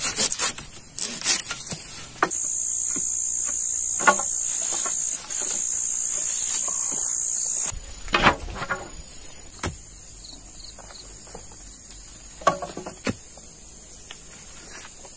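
A few strokes of a folding pruning saw through a branch at the start, then a loud, steady, high-pitched insect drone from about two seconds in that stops abruptly near eight seconds. After that a fainter high insect hum goes on, with a few short knocks of wood.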